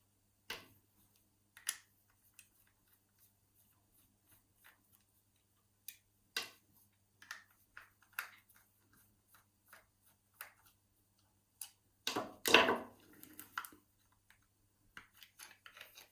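Scattered clicks and light metal taps as a five-lever mortice lock's case is handled and opened up, with a louder clatter about twelve seconds in.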